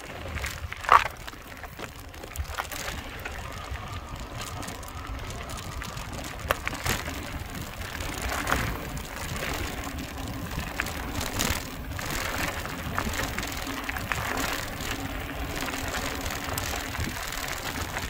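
Mountain bike rolling fast over a loose gravel trail: tyres crunching steadily on the stones, with low rumble and frequent rattles and knocks from the bike over the bumps, and one loud sharp knock about a second in.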